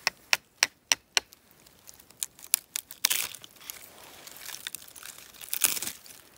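Five quick hammer taps on a small chisel driven into a chaga conk on a birch trunk, about three a second. Then the crumbly chaga crunches and tears as a chunk is pried and pulled away by hand, louder near the end.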